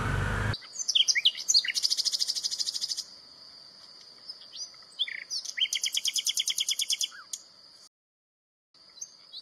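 Birds chirping, with two fast trills about a second long each and a steady high tone underneath. It begins with a sudden cut from a louder noise, and the sound drops out briefly near the end.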